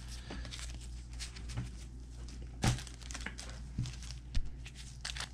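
A trading-card pack wrapper crinkling as gloved hands handle it, with irregular crackles and a sharper snap about three seconds in.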